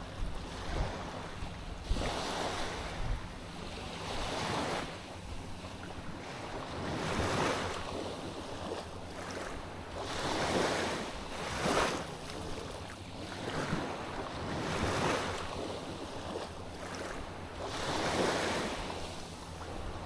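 Sea waves washing onto a beach, the surf swelling and falling every two to three seconds, with wind buffeting the microphone. A low steady hum runs underneath.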